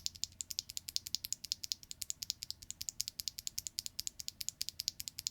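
HMX Martini V2 rail-bottom-out linear mechanical keyboard switch being pressed over and over. It gives rapid, even, light clicks, several a second, as the stem bottoms out on its rails.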